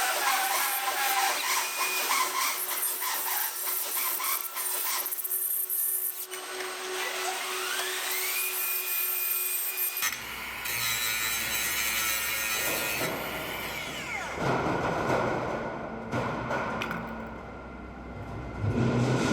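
Power tool at work on wood or fittings, cutting or drilling in spells, with one spin-up to a steady whine partway through; the sound changes abruptly about halfway.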